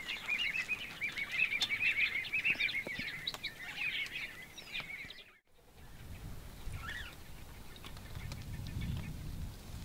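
A flock of helmeted guineafowl chattering: a dense run of short, harsh calls repeated over and over. It cuts off after about five seconds and gives way to a low rumbling noise.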